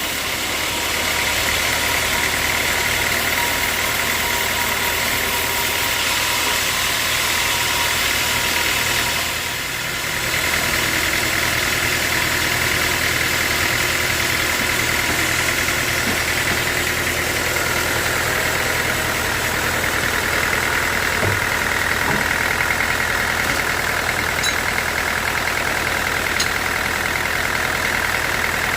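Sawmill machinery running steadily with an engine-like drone and a higher steady whine over it, easing off briefly about ten seconds in.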